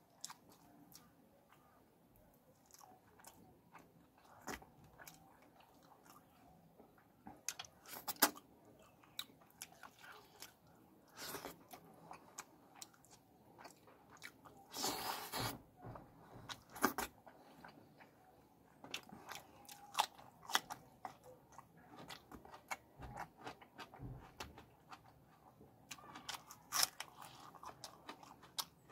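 Close-miked mouth sounds of a person eating fish curry by hand: chewing and biting in irregular sharp clicks, with a longer, louder burst about halfway through.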